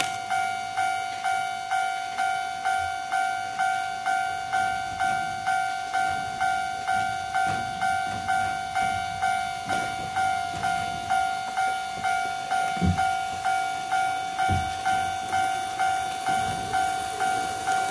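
Model railway level crossing warning bell dinging steadily, about two strikes a second, signalling that a train is approaching the crossing.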